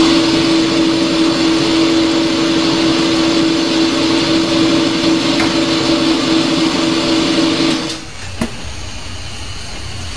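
Hydraulic oil press's pump and motor running with a steady hum and whine, then cutting off abruptly about eight seconds in. A single knock follows shortly after.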